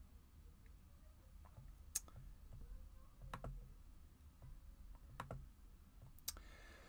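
Near silence with a handful of faint, sharp desk clicks, a second or so apart, over a low steady hum.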